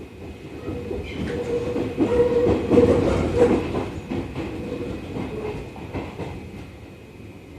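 Seibu 30000 series electric train running on the line, heard from inside the car: wheels rumbling and clattering over the rails, with a steady hum. It grows louder toward the middle, then eases off near the end.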